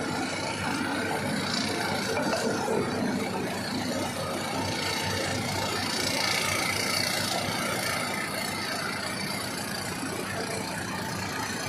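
Tata Hitachi excavator's diesel engine running steadily.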